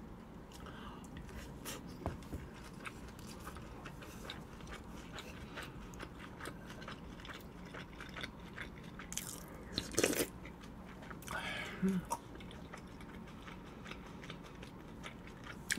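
Close-miked chewing of a mouthful of chive bibimbap (soft rice with chives and egg): soft, wet mouth clicks and smacks throughout, with a few louder clicks about nine to twelve seconds in.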